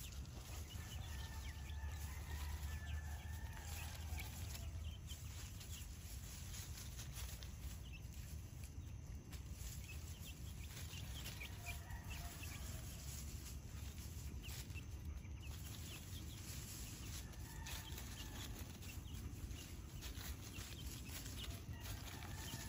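Chickens clucking softly now and then as they forage, with light scratching and rustling in dry bamboo leaf litter.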